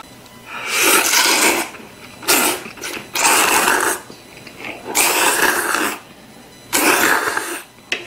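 A man slurping kimchi kalguksu noodles in five loud slurps, four of them about a second long and one short, with short pauses between.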